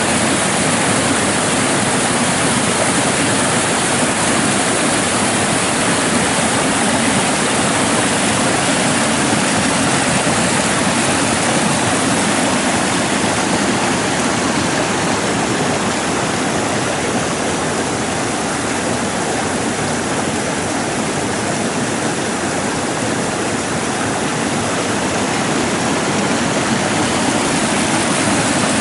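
Rain-fed floodwater in a normally dry rambla, rushing and cascading over rocks and boulders: a loud, steady rush of water.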